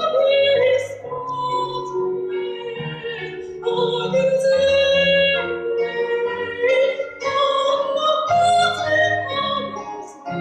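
Music: a woman singing a slow melody of long held notes in classical, operatic style, with piano accompaniment.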